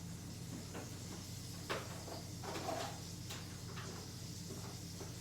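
Eating sounds: a scattering of short, irregular clicks and small crunching noises of chewing food, over a low steady hum.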